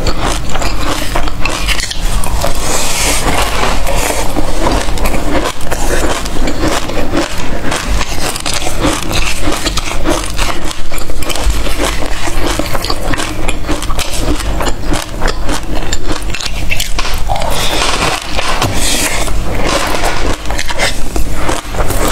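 Loud crunching and chewing of a mouthful of black seeds, a dense crackle of many small cracks, with a plastic spoon now and then scraping through the seeds in a glass bowl.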